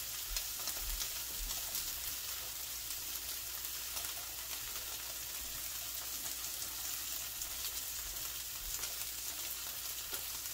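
Pink salmon fillets searing in olive oil in a skillet: a steady sizzle with scattered pops and crackles.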